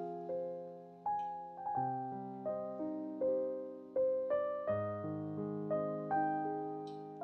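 Background piano music: a slow, gentle melody of struck notes, each ringing and fading, over soft low chords.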